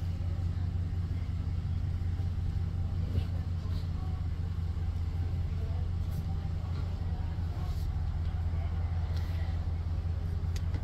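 Steady low drone of a pickup truck's engine and road noise, heard from inside the cab while driving slowly.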